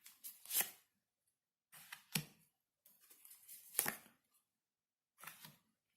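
Tarot cards being handled and laid out on a table: soft rustles and three sharp card snaps about a second and a half apart.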